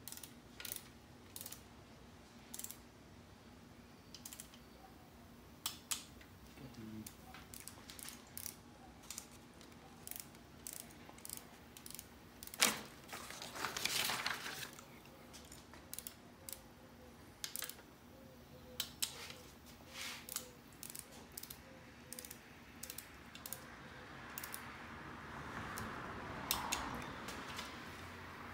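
Ratchet and click-type torque wrench tightening the aluminium intake manifold bolts of a 5.3 LM7 V8 in the torque sequence. Scattered sharp clicks of the ratchet pawl, with a single louder click about halfway through and a short rattle just after.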